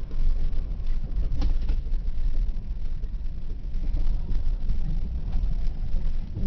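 Off-road rig's engine running at low speed, heard from the vehicle as it crawls along, a steady low rumble with a few knocks and rattles from the bumpy ride.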